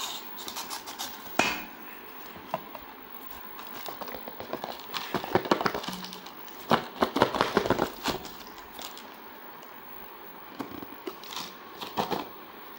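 Plastic courier mailer bag crinkling and rustling in irregular bursts as the phone box inside it is handled and pulled out, with a sharp crack about a second and a half in.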